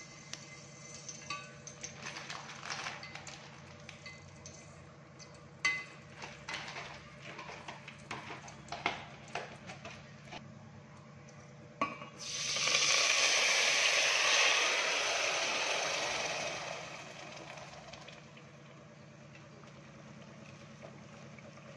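Whole spices frying in hot oil in a stainless-steel pot, with small scattered pops and crackles. About twelve seconds in, a sudden loud sizzle starts and dies away over the next five seconds or so.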